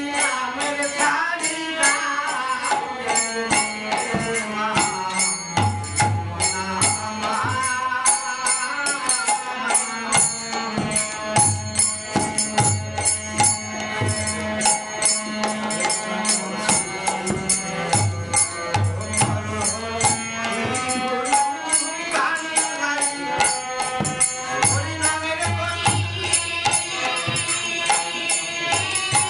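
Bengali Hari naam kirtan: voices chanting a devotional refrain over small hand cymbals (kartal) struck in a fast, even rhythm, with a harmonium and a steady drum beat.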